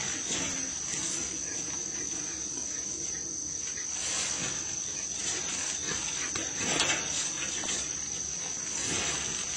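Steady high-pitched insect chirring, with scattered soft rustles and knocks from wild boar piglets moving about in a wire cage trap, the loudest about two-thirds of the way through.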